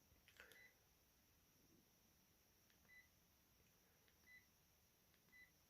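Sharp GX1 mobile phone's keypad beeping as its keys are pressed to step through the menus: four short, faint, high-pitched beeps, each just after a faint key click, spaced unevenly.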